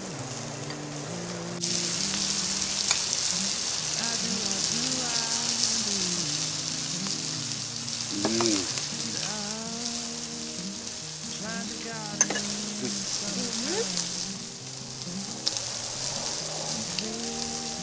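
Pork slices sizzling on a moo kratha domed grill pan, a steady frying hiss that grows louder about two seconds in, over soft background music.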